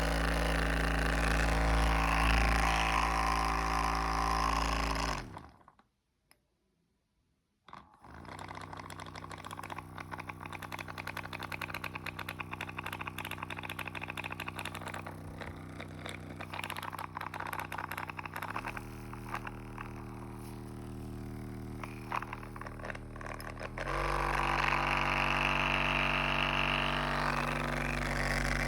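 A small engine running steadily. It cuts out for about two seconds, then runs again more quietly with a fast clicking rattle, changing speed twice near the end. This is the weird rattling noise the machine has suddenly developed.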